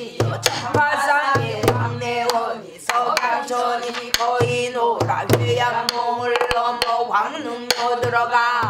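A woman singing pansori in a strong, bending voice, keeping time on a buk barrel drum. The drum gives deep thuds on the drumhead and sharp stick clicks, scattered irregularly between the sung phrases.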